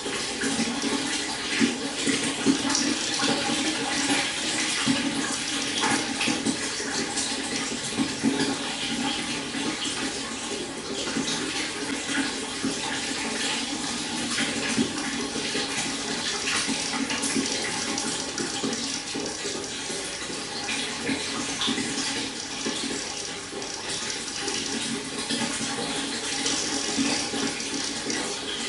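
Shallow stream water flowing and babbling steadily, with many small splashes and trickles.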